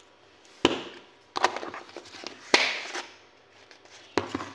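Kitchen items being handled on a counter: several sharp knocks and clatters in four short groups, the loudest about two and a half seconds in, followed by a brief scraping rustle.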